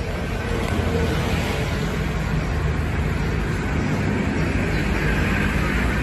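Steady background noise with a low rumble, even throughout, with no distinct events.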